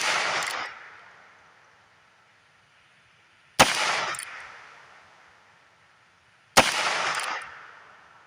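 Shots from a Heritage Rough Rider single-action .22 revolver firing CCI Stinger .22 LR rounds: two sharp cracks about three seconds apart, each trailing off in a long echo. The fading echo of a previous shot is heard at the very start.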